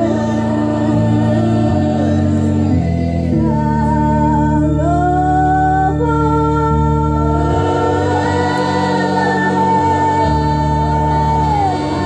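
A song playing: a singing voice holding long notes over sustained low chords that change every second or two.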